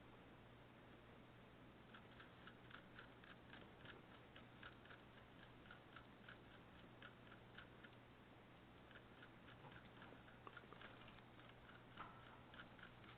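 Faint, quick clicking of a small caged pet chewing, several clicks a second, starting about two seconds in with a short pause midway, over a steady low hum.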